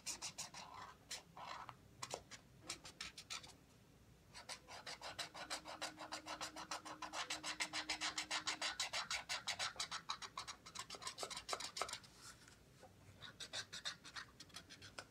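Felt-tip marker drawing on a cardboard toilet-paper tube in quick back-and-forth strokes, several a second. It comes in spells with short pauses and is busiest in the middle.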